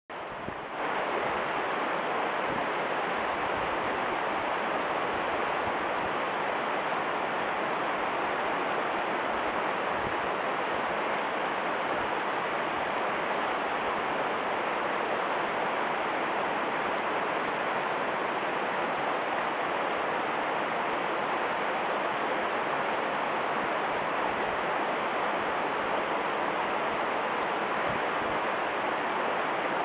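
Salmon River flowing, heard from midstream: a steady, even rush of moving water that fades in over the first second.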